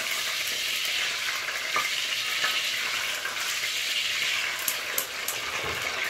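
Whole octopus sizzling steadily as it is dipped into hot olive oil in a heavy pot, the dips that make the tentacles curl; a few light clicks about five seconds in.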